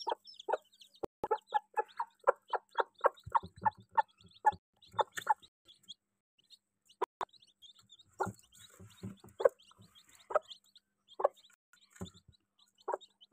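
Mother Aseel hen with newly hatched chicks clucking: a quick run of short low clucks, about four a second, for the first few seconds, then slower, scattered clucks.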